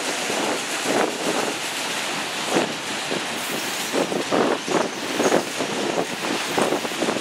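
Freight train of autorack cars rolling past: continuous wheel-on-rail noise with irregular clatter.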